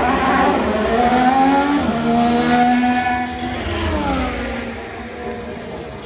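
Red Bull RB19 Formula 1 car's 1.6-litre turbocharged Honda V6 hybrid engine at high revs as it passes along the straight: the note climbs in pitch with a step about two seconds in, then drops in pitch as the car goes by about four seconds in and fades.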